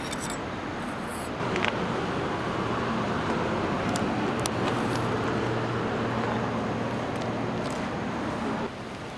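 A steady low engine-like hum with a noisy wash over it. It swells about a second and a half in and cuts off abruptly shortly before the end.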